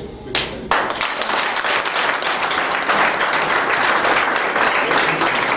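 Audience applauding: two lone claps about a third of a second apart, then a roomful of people clapping steadily.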